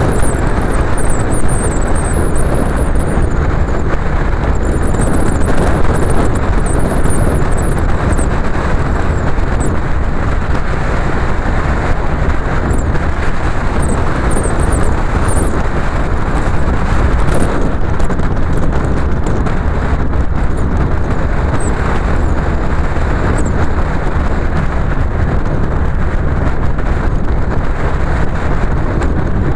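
A car driving at a steady speed: a continuous rumble of engine and road noise that holds even throughout, with a few faint high chirps in the first half.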